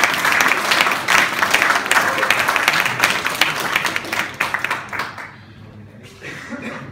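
A small audience applauding, with many hands clapping; the clapping dies away about five seconds in.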